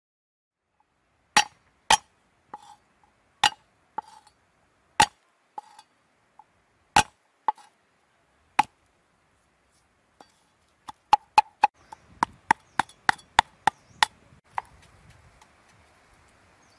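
Chopping with a blade: sharp single chops, each with a short ring, spaced irregularly at first, then after a pause a quicker run of about a dozen chops.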